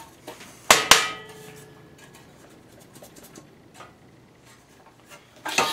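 Sheet-metal engine shroud clanking as it is handled: two sharp metallic knocks close together a little under a second in, ringing on briefly after them, then faint small rattles and a burst of clatter at the very end.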